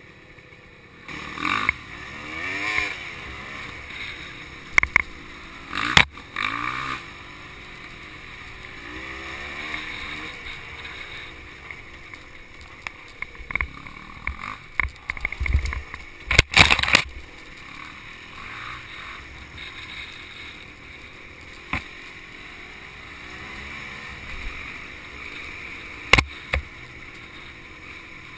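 Two-stroke dirt bike engine, a Honda CRM250 single, revving up and down at low speed over a rough woodland trail. Sharp knocks and clatters come through now and then, the loudest about six seconds in and again around sixteen to seventeen seconds.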